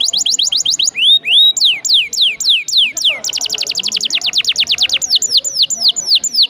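Domestic canary singing a rolled song: fast trills of about ten rising notes a second, broken by slower, falling whistled notes about a second in and again after the middle.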